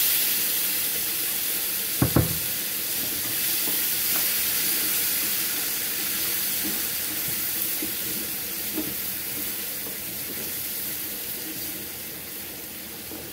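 Tomato purée poured into hot oil and browning rice in a frying pan, sizzling loudly at first and slowly dying down as it is stirred. One sharp knock about two seconds in.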